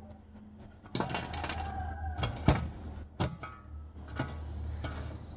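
Metal shovel dropping charcoal onto the metal lid of a large cooking pot: about five sharp clinks and clatters of coals and blade on the lid, the first followed by a brief ringing tone. The coals give heat from above while the rice steams (dum).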